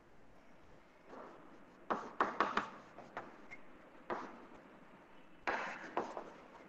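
Chalk writing on a chalkboard: clusters of sharp taps and short scrapes as lines and labels are drawn, loudest about two seconds in and again near the end.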